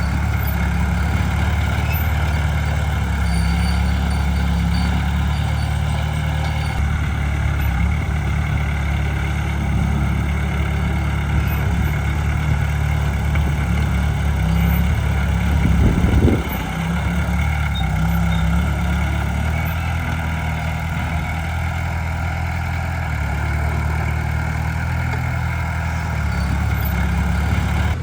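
Heavy diesel engine of earthmoving machinery running steadily, with a short louder surge about sixteen seconds in.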